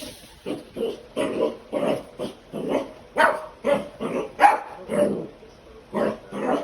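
Puppy barking over and over in short, separate barks, about two a second, pestering her owner to get on the floor and play.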